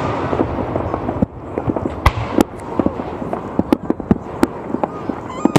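Fireworks going off: a rapid, irregular series of sharp bangs over continuous crackling.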